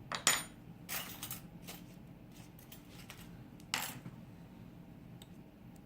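Small metal lock-picking tools clinking against each other and the lock as a tension tool is swapped and set: a couple of sharp clinks right at the start, one ringing briefly, a cluster of scraping clicks about a second in, another clink just before four seconds, then a few faint ticks.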